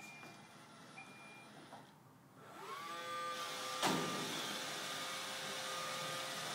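iRobot Roomba robot vacuum starting a cleaning run: two faint short beeps a second apart, then its motors spin up with a rising whine about two and a half seconds in. A sharp knock comes just before four seconds, and the vacuum then runs with a steady whir.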